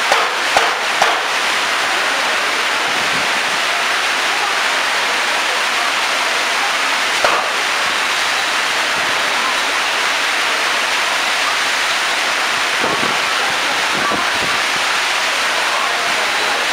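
Heavy rain pouring down in a steady, dense hiss, with a few sharp knocks near the start and another about seven seconds in.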